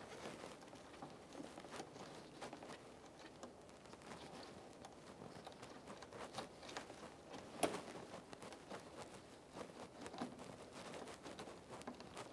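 Faint rustling and crinkling of a plastic front fender liner being pulled back and flexed by gloved hands, with scattered small clicks and one sharper click about seven and a half seconds in.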